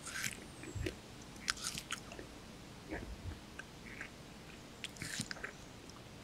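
Purple-faced langur biting into and chewing a chunk of watermelon: short bursts of crunchy bites near the start, about a second and a half in, and again around five seconds.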